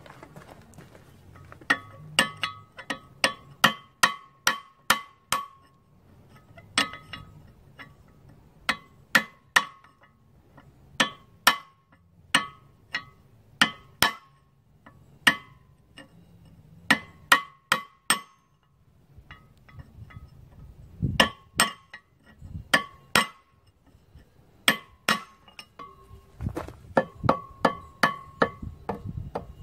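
Hammer blows on a steel punch against the gib key in an International Type M engine's flywheel hub, driving the rusted key out. Each strike gives a sharp metallic ring, in runs of a few quick blows with short pauses between.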